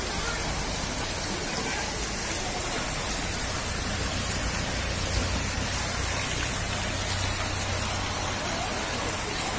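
Steady, unbroken hiss of heavy rain and floodwater, with a low hum underneath through the middle of the stretch.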